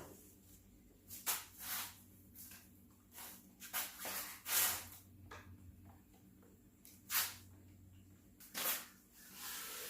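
Paper towel rubbed over the wood to wipe off excess CA glue: about ten short, irregular hissing swipes.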